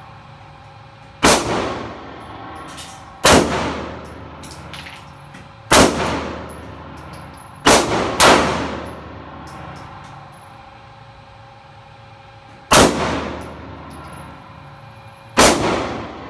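Seven semi-automatic pistol shots fired at an unhurried, uneven pace, two of them in quick succession about eight seconds in. Each shot is sharp and rings out with a long echo off the walls of the indoor range.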